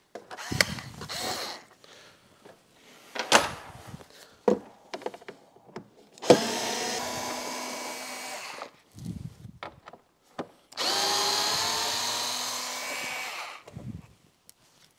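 A compact cordless screwdriver backing plastic-trunk screws out of a motorcycle trunk-lid liner. It runs twice for a couple of seconds each, about six and eleven seconds in, with a steady whine. Short clicks and knocks of the screws and plastic being handled come before it.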